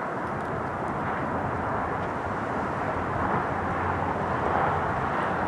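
Boeing 747-8F freighter's four GEnx turbofans heard from a distance as the jet climbs out after takeoff: a steady rushing jet noise with a low rumble underneath, growing slightly louder toward the end.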